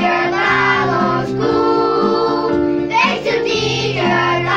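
Young children singing a school song together over a musical accompaniment, holding sustained notes.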